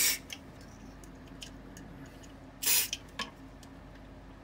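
Cleaned dehumidifier fan running with a faint steady hum, broken by two short hissing bursts, one at the start and one about two and a half seconds in.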